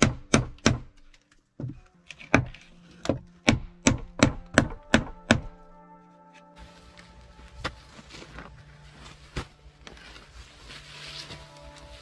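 Hammer blows on a tool set into the log wall, about a dozen sharp wooden knocks at two to three a second, stopping about five and a half seconds in; two more single knocks follow later over background music.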